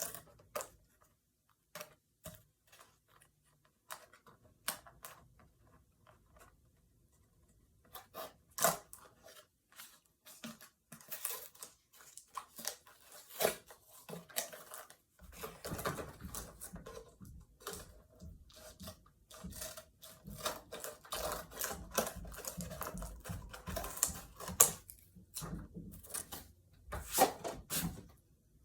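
Toy car packaging being handled and torn open: scattered sharp clicks and crinkles at first, then dense crackling and rustling from about halfway through.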